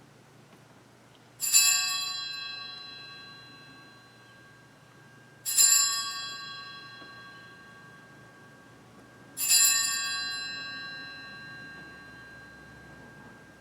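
Altar bell struck three times, about four seconds apart, each stroke ringing out and fading slowly. This marks the elevation of the chalice just after its consecration.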